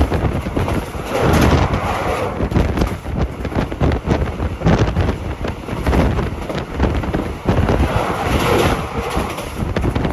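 Wind buffeting the microphone: a loud, rough rumbling noise with no steady tone, swelling twice, about a second and a half in and again near the end.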